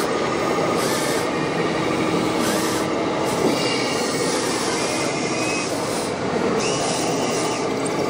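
Remote-controlled model crawler loader working its tracks and bucket, its small electric motors and hydraulic pump giving a thin whine that comes in twice, over the steady din of a busy exhibition hall.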